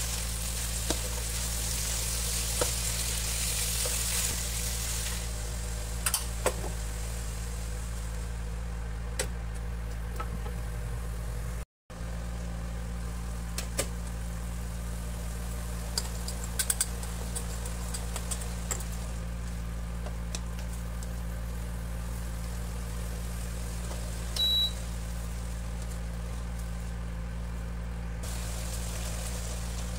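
Induction cooktop's steady electrical hum under green beans and chicken stir-frying in a non-stick pan: light sizzling for the first few seconds, then occasional spatula clicks and scrapes. A short electronic beep sounds near the end.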